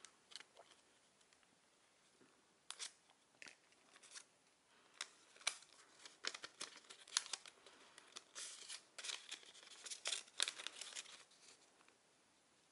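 Faint crinkles and rustles of paper being handled: a small translucent paper envelope fastened with a brad is opened and a stack of small paper cards is slid out and shuffled. The crackling is busiest about two-thirds of the way through.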